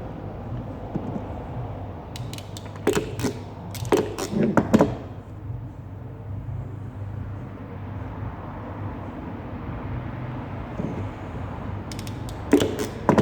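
Hand tools working on car-stereo wiring: clusters of sharp clicks and snaps about three and four and a half seconds in, and again near the end, over a steady low hum.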